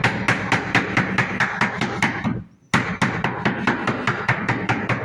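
Rapid hammering on a beating block, about seven sharp blows a second, in two runs of a couple of seconds with a short break between: the block is being beaten to bed the flooring down into the adhesive for full coverage.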